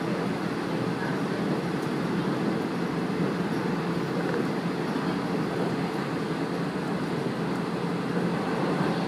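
Steady running noise of a train in motion, heard from inside the carriage: an even rumble of wheels and the car body on the track.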